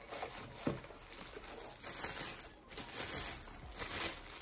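Packaging crinkling and rustling as the gimbal stabilizer's main unit is pulled out of its white wrapping.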